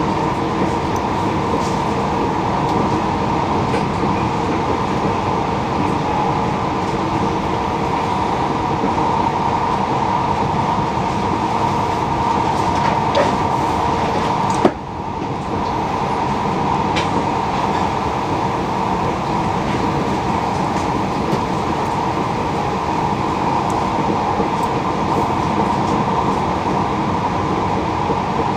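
Steady running noise of a passenger train heard from inside the carriage: an even rumble with a constant mid-pitched hum and a few faint ticks from the wheels on the rails. About halfway through there is one sharp click, and the sound dips briefly.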